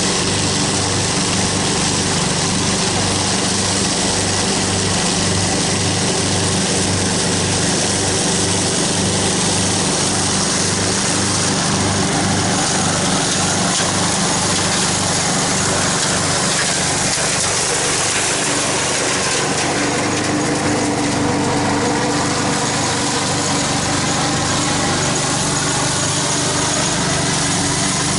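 Craftsman riding lawn mower's engine running steadily with a regular low pulse as the mower drives over dry leaves, mulching them.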